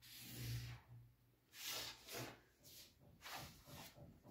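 Faint scratching of a felt-tip marker drawing a curve on paper, followed by a few soft rubs and rustles of the paper and the wooden curve ruler being moved.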